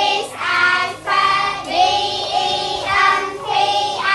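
A class of children's voices in unison, chanting the lesson aloud in long sing-song syllables.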